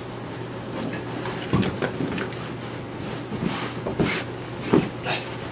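Canvas duffel bag being handled and lifted: fabric rustling and shifting, with a few soft knocks, the clearest about a second and a half in and twice near the end. A steady low hum underneath.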